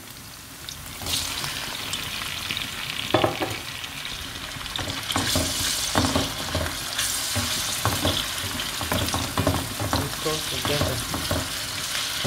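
Onions and pepper frying in hot groundnut oil. About a second in, the sizzle rises as chopped tomatoes go into the pan, and it grows louder again from about five seconds. A wooden spoon stirs through it with irregular soft knocks and scrapes against the pan.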